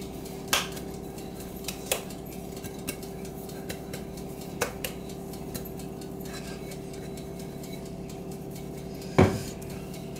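Glass casserole dish being tilted and shaken by hand to spread flour and oats over its greased bottom: scattered light taps and clicks of glass, with one louder knock about nine seconds in, over a steady hum.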